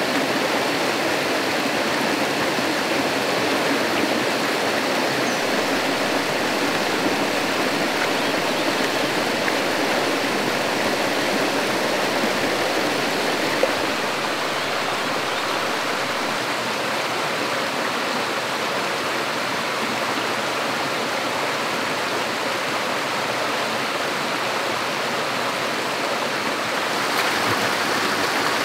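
Running water making a steady, unbroken rush, with a single small tap about halfway through.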